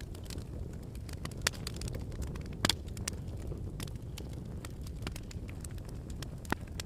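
Campfire crackling: irregular sharp pops and snaps over a low steady rumble, with the loudest pops about a second and a half in, about two and a half seconds in, and near the end.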